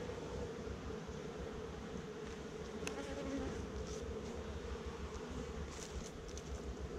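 Honey bees buzzing in a steady hum around a hive that is opened up and being taken apart, the colony disturbed by the handling. A knock sounds about three seconds in.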